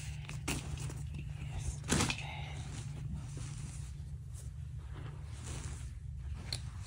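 Cloth rustling as a black ribbed knit jumpsuit is moved and spread out by hand on carpet, a few short brushing strokes with the loudest about two seconds in. A steady low hum runs underneath.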